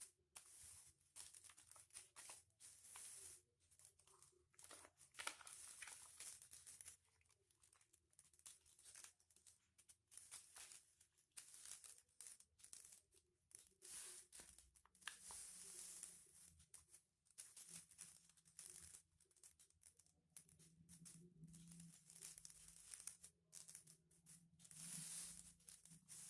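Faint, irregular crinkling and rustling of aluminium-foil-covered paper as it is folded and creased by hand.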